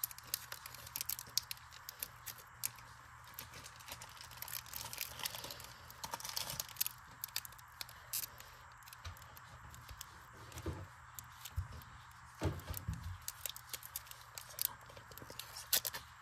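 Foil wrapper of a Pokémon trading-card booster pack being picked at and twisted with the fingers, giving many small, sharp crinkles and crackles as someone struggles to tear it open. A few soft low thumps come about ten to thirteen seconds in.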